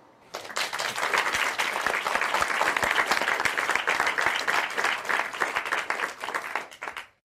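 Applause, many hands clapping, starting suddenly just after the start and dying away near the end.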